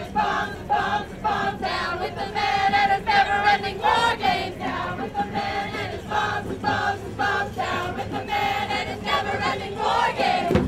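A crowd of voices chanting together in unison, short shouted syllables repeated in a steady rhythm.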